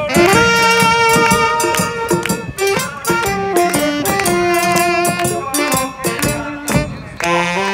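Chindon-ya street band playing: a saxophone melody in held notes over the rapid strikes of a chindon drum rig's small drums and gong and a large bass drum. The playing dips briefly near the end, then a new phrase starts.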